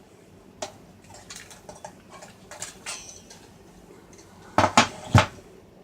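Plastic locking tabs on a Toyota Tundra radio's touch-screen assembly being pried up and handled: scattered light clicks and taps, then three sharper snaps close together near the end.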